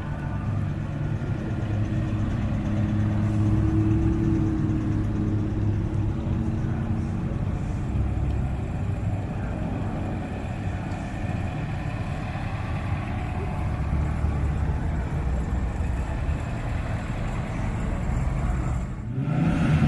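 Car engines running as cars drive slowly past, with steady low engine notes that rise and fall in pitch. The sound breaks off just before the end and another engine takes over, louder.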